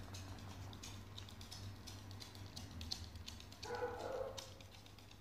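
A four-week-old Shiba Inu puppy gives one short, high yip about four seconds in, over light clicking of claws on the wooden floor.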